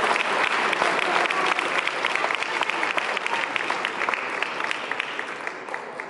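Spectators applauding, many hands clapping at once, the clapping thinning out and fading away over a few seconds.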